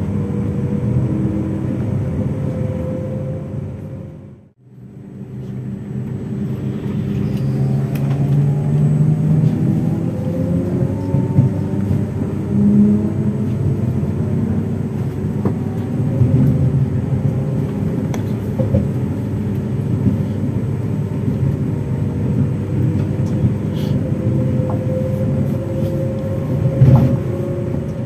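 Z 20781, a Z 20500-series (Z2N) double-deck electric multiple unit, running with a steady low rumble and several steady tones from its traction equipment, and fainter whining tones that slowly rise in pitch. The sound fades out to a short gap about four seconds in, then comes back.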